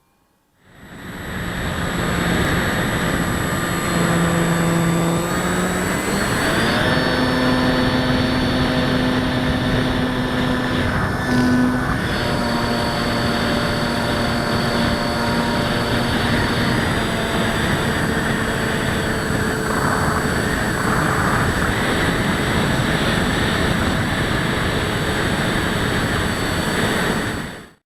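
Electric motor and propeller of an RC Parkzone Sport Cub running steadily in flight, a whining tone that steps up in pitch a few seconds in as the throttle is advanced, then holds; it cuts off suddenly near the end.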